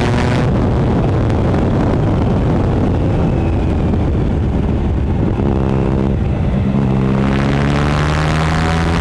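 2013 Triumph Speed Triple 1050's three-cylinder engine through its slip-on exhaust: the throttle closes about half a second in and the bike runs on engine braking with a rough low burble, then the throttle opens again around five and a half seconds in and the revs climb steadily as it accelerates.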